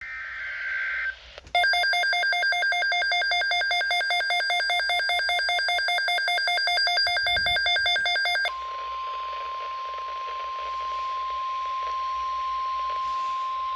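EAS weather alert tones: a brief digital data burst, then about seven seconds of a loud, rapidly pulsing electronic alarm, then the steady single-pitch NOAA Weather Radio 1050 Hz warning alarm tone, which signals that an urgent weather message follows.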